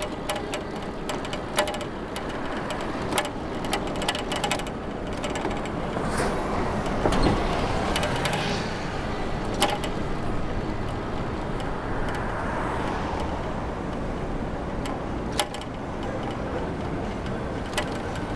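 Steady road and traffic noise heard from a moving bicycle on a city street, dotted with scattered sharp clicks and rattles. Traffic noise swells up about seven seconds in and again more gently about twelve seconds in.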